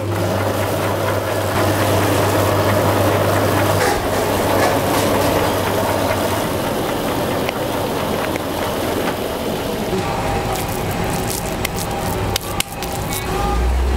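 Hands kneading and squeezing a large mound of minced pork and diced pork fat, a wet squishing, over a steady low hum that stops about four seconds in and returns near the end, with a few sharp clicks late on.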